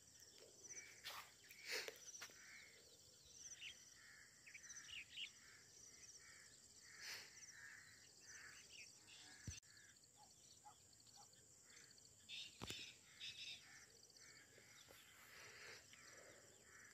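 Near silence: faint steady insect chirring, like crickets, with a few faint scattered bird chirps. Two brief knocks come about halfway through and a little after.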